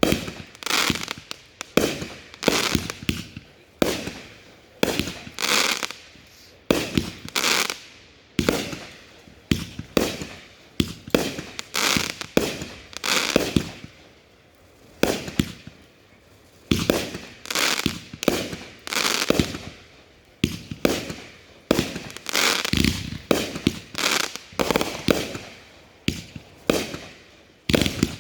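Consumer fireworks going off: a rapid run of sharp bangs, one or two a second, each trailing off with a crackle and echo, as aerial cakes fire shot after shot.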